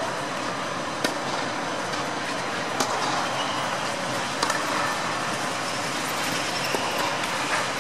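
Tennis balls struck by rackets: a few sharp pops spaced a second or two apart, over a steady rushing background noise.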